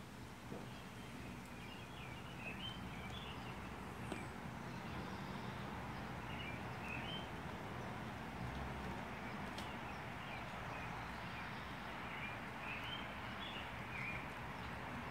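Birds chirping off and on over a steady outdoor background hum, with a single sharp click about four seconds in.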